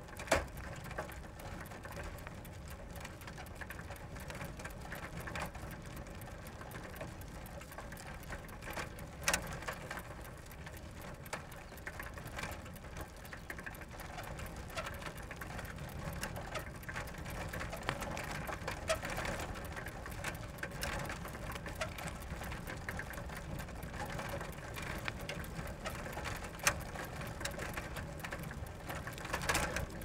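Bicycle ridden slowly and continuously: a steady mechanical rattle with dense fine clicking, and a few sharper clicks here and there.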